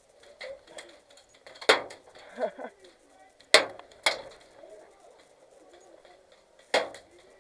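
Airsoft gunfire in a firefight: four sharp single cracks with a short metallic ring, spaced unevenly, the first two the loudest. A faint distant shout comes between the first two.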